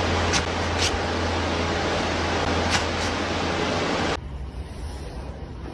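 Steady rushing noise with a low hum and a few light clicks; it cuts off abruptly about four seconds in, leaving quieter background noise.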